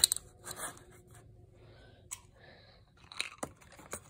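The lid of a small hinged wooden box clacks shut, one sharp loud click right at the start. Scattered faint clicks and rustles of hands handling small wooden and plastic pieces follow.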